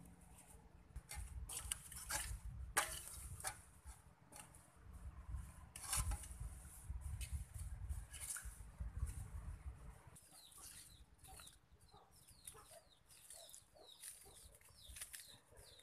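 Rustling and clicking as hands handle food in a plastic basket and a metal colander, with a low rumble under it for the first ten seconds. After that, a run of many short, falling bird chirps.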